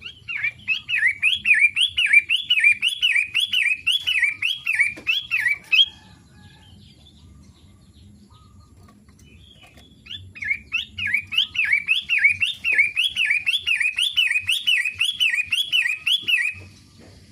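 Long-tailed shrike (cendet) singing: two bouts of a fast repeated phrase, each note a quick sweep down and back up, a little over two notes a second. The bouts are separated by a pause of about four seconds.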